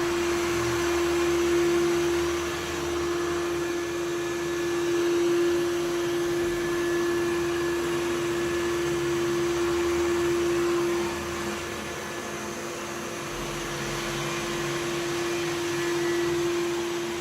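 Samsung VR20M7070WD robot vacuum running: a steady whirring hiss with a constant hum, its level dipping slightly about eleven seconds in.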